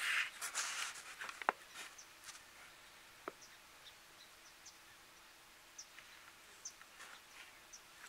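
Rustling and handling noise close to the microphone for about a second as the camera is moved, with a few sharp clicks in the first two seconds. Then a quiet outdoor background with scattered faint, high chirps.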